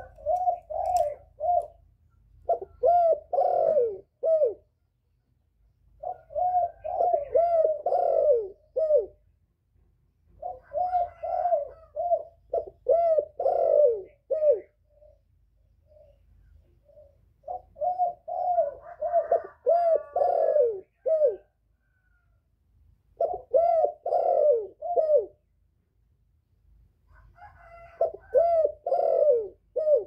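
Male spotted dove cooing close by, in about seven bouts of quick repeated coos, each a few seconds long, with short pauses between them: the territorial call that a decoy bird uses to draw in wild doves.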